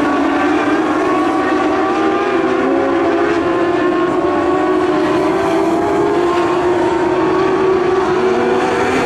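Engines of several modlite dirt-track race cars running on the track: a steady drone of overlapping engine notes that drift slightly up and down in pitch.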